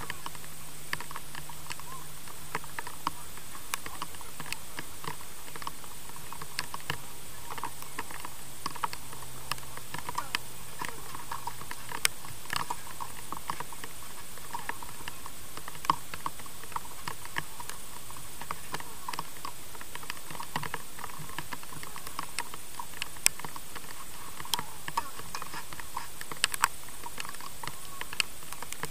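Tennis practice on a clay court: irregular sharp pops of a tennis ball struck by a racquet and bouncing, with lighter ticks and taps in between, over a steady hiss.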